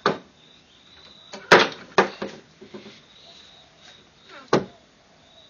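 Wooden knocks and clacks from a homemade treadle chicken feeder being worked by foot, as the step board and the hinged lid over the feed holes lift and drop. The loudest knock comes about a second and a half in, with a few smaller ones after it and another single knock near the end.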